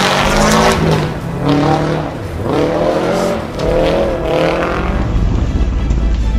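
Rally car engine revving hard, climbing in pitch and dropping back about four times as it shifts up through the gears. About five seconds in, a music track with heavy bass takes over.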